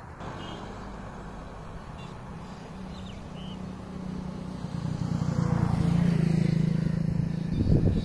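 A road vehicle passing close by: its low engine hum swells from about halfway through, is loudest near the end, then begins to ease off.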